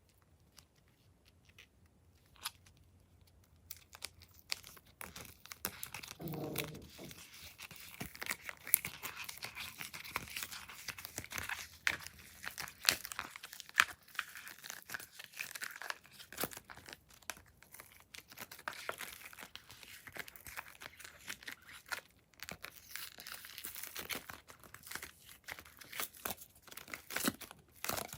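Glossy slime being squeezed, stretched and folded by hand, giving a run of sticky crackling with many small pops and clicks. It starts a few seconds in after a quiet opening, with a short squelchy squeak about six seconds in.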